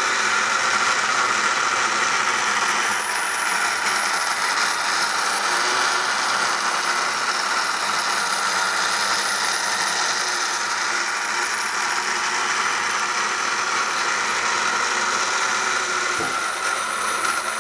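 Alps 1960 'Super Blender' battery-operated toy blender running: its small electric motor spins the blade in the plastic jar with a steady, even whir, then cuts off suddenly at the end.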